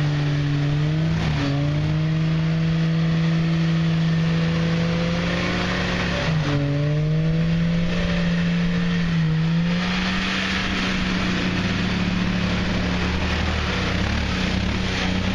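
1994 Jeep Cherokee XJ's 4.0 inline-six engine held at high revs while driving through deep mud, its pitch dipping briefly three times and coming back up.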